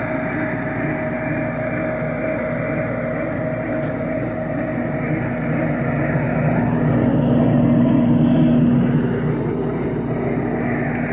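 Wacker Neuson mini skid steer's engine running steadily under load while driving a 6-inch trencher attachment. It grows louder for a couple of seconds a little past the middle, then settles back.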